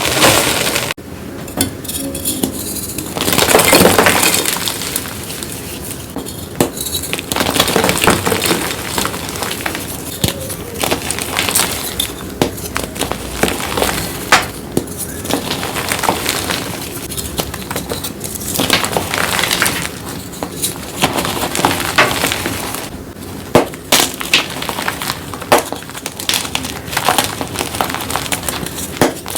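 Blocks of gym chalk crumbling, a dense run of crisp, glassy crunches and crackles, with louder crunching spells every few seconds.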